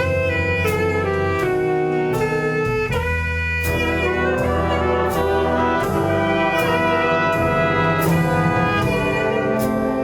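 Instrumental ensemble music with brass and saxophone playing sustained, changing notes over a steady beat of percussion hits.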